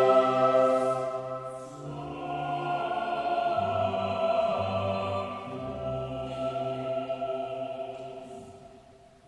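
Church choir and orchestra performing a classical Mass setting. A full held chord dies away about two seconds in, then a soft sustained passage follows and fades almost to silence near the end.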